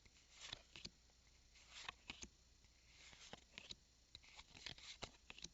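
Faint, scattered soft clicks and short rustles of trading cards being slid and flipped through by hand.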